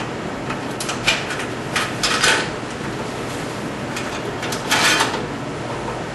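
Several short knocks and scrapes of gear being handled, the longest cluster near the end, over a steady rushing background.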